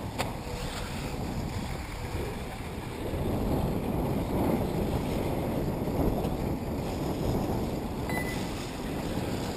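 Wind buffeting the microphone: a rough, low noise that swells and fades unevenly.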